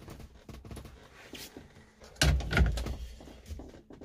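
Small clicks and knocks of parts being handled, with a heavier thump and clatter about two seconds in.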